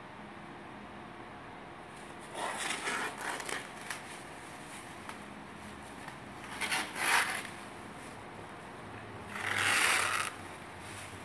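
Clear plastic masking film rustling and crinkling as it is pulled and gathered by hand, in three short bursts a few seconds apart.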